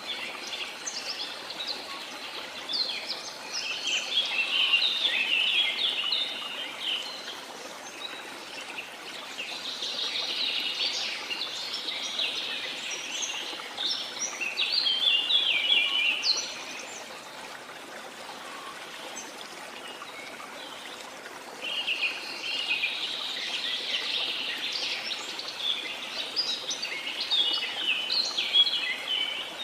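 A chorus of small songbirds chirping and twittering in busy spells, falling quiet for a few seconds around the middle, over a steady wash of sea water.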